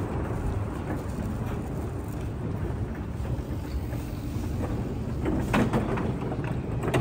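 City street traffic: the steady low rumble of passing vehicles, with a few short clicks about five and a half seconds in.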